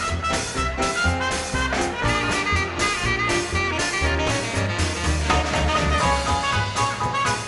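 A small swing-jazz combo playing a 1930s-style number: upright bass walking in short steady notes under drums, piano, trumpet and saxophone, with the horns carrying held notes on top.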